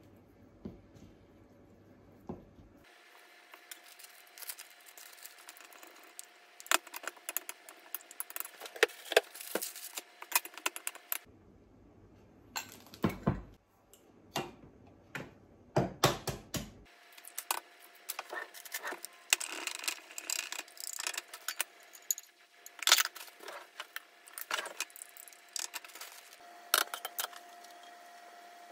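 Kitchen handling sounds during cooking prep: irregular clicks, taps and clinks of utensils, bowls and containers set down on the counter and hob, over a faint steady hum.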